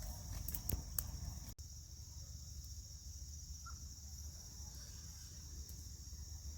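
Crickets trilling steadily at a high pitch over a low rumble, with a few sharp clicks in the first second.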